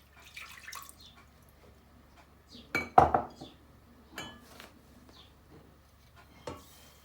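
Kitchenware clattering as ingredients go into a saucepan: scattered clinks and knocks of a pan, utensils and containers, the loudest a sharp clank about three seconds in.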